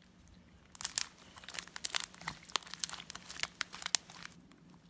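Homemade glitter slime being squished and stretched by hand, giving a rapid, irregular run of crackling clicks and pops that starts about a second in and stops near the end.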